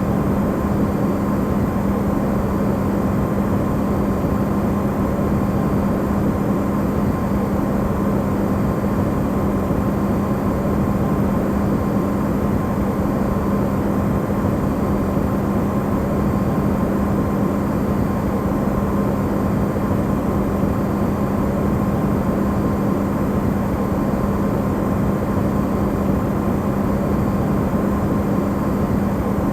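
Electrolux refrigerator running, recorded amplified: a steady, unchanging hum with a low drone and a fainter higher tone over a wash of noise.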